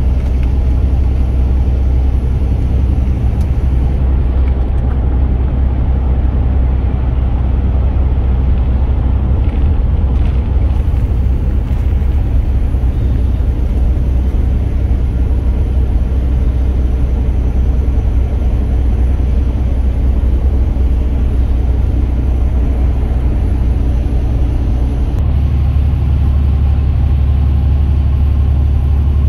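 Steady low rumble of a semi-truck's engine and road noise heard inside the cab while cruising on the highway. The low drone shifts a little near the end.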